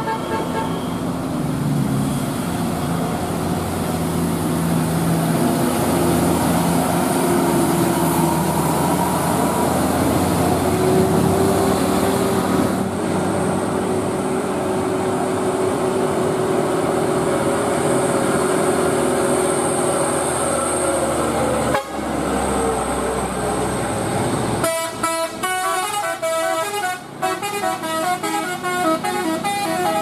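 Heavy vehicles passing on a road, their engines running, for most of the stretch. Near the end a bus's multi-tone telolet horn plays a quick melody of stepped notes.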